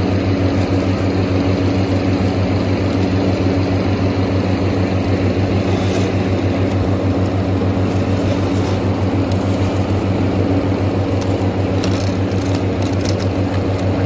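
Steady low machine hum, like a motor running, unchanged throughout, with a few faint crackles of the bale's plastic wrap and strapping being handled near the middle and near the end.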